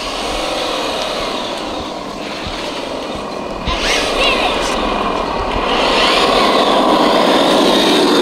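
Traxxas TRX-6 6x6 RC truck's electric motor and drivetrain whining as it is driven, the pitch rising and falling with the throttle. It gets louder partway through and stays louder near the end.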